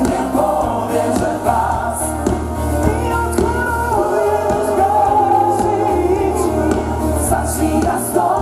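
Live pop song: a vocal group singing together over a band with a steady bass line and cymbals, heard through a concert PA.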